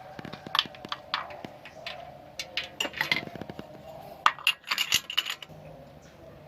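Irregular metallic clinks and clicks of hand tools and a spark plug being handled during a spark plug change, with a quick run of sharper clinks about four to five seconds in.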